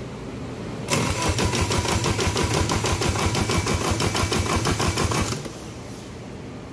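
Honda K24A2 four-cylinder engine cranked over by its starter motor, a fast, even chugging with a faint whine that starts about a second in and stops abruptly after about four seconds. This is the cranking for a compression test on cylinder two, which reads very low.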